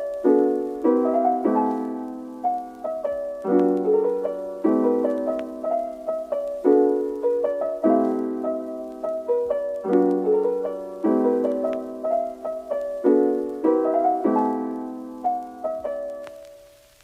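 Background music: a slow, gentle piano piece with chords struck every second or two and left to ring, fading out near the end.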